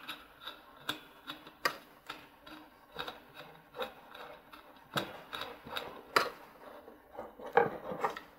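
Pop filter clamp being screwed tight by hand onto a metal microphone arm stand: irregular light clicks and knocks of metal parts, about one or two a second, with faint rubbing between them.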